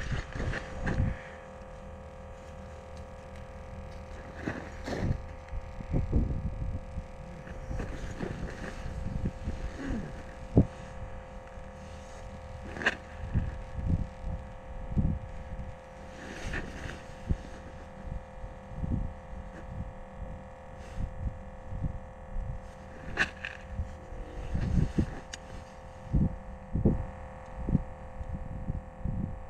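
Irregular low thumps and knocks from boots and handling on the ice close to the microphone, over a steady hum.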